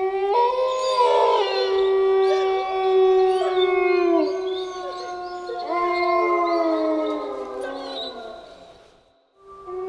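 A chorus of wolves howling: several long howls at different pitches overlap, gliding up and down. The howls die away about nine seconds in, and after a brief gap a new chorus starts near the end.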